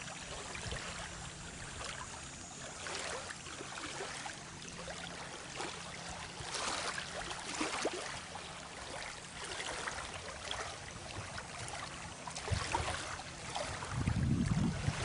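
Small lake waves lapping on the shore, in soft repeated washes a second or two apart. Near the end, a low rumble of wind on the microphone comes in.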